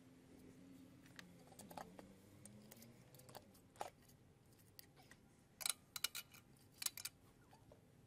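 Faint clicks and light taps of hand tools on an engine's intake manifold as it is unbolted, with a cluster of sharper clicks in the second half, over a faint steady hum.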